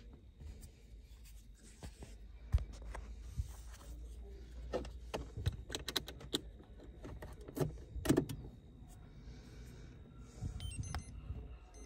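Car keys jangling, with clicks and knocks as the next key is pushed into a Renault Clio's ignition and turned on, the clicks bunched about halfway through. A few short high electronic beeps come near the end.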